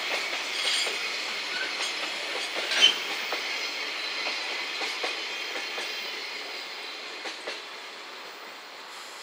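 Container flat wagons of a freight train rolling past on a curve: steady wheel-on-rail noise with a high-pitched squeal, scattered clicks from the wheels, and one short loud screech about three seconds in. The sound slowly fades as the last wagons go by.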